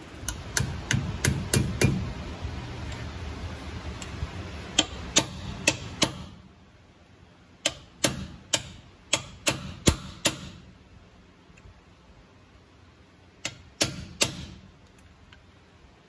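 Sharp metallic clicks and taps in several short runs, from hand tools working on the pinion nut of a Ford Super Duty's rear axle. A low rumble underlies the first few seconds.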